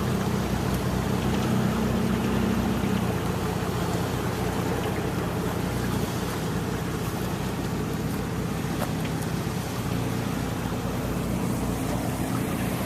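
4x4's engine running as it drives through a shallow riverbed, pulling a little harder in the first few seconds and then easing off, with a constant wash of water and tyre noise.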